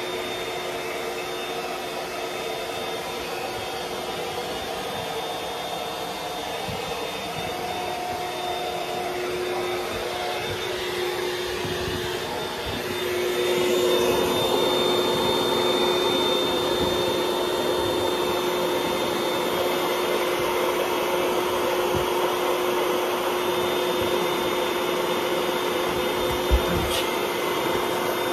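Electric air pump of an Intex Dura-Beam airbed running steadily as it inflates the mattress, with a constant whine; it gets louder about halfway through. A brief knock near the end.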